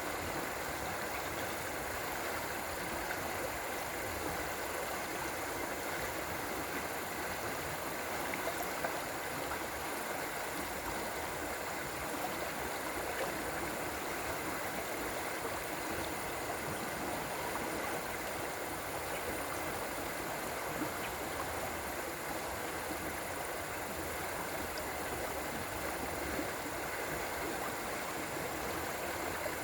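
River water flowing steadily, an even rushing sound without a break.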